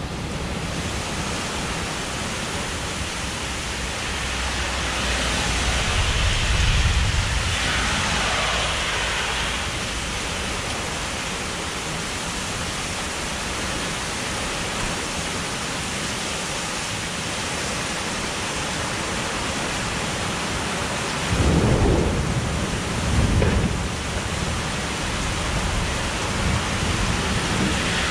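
Heavy rain pouring steadily in a severe thunderstorm. A long low rumble of thunder swells about six seconds in, and two short, heavy rumbles come close together near the end.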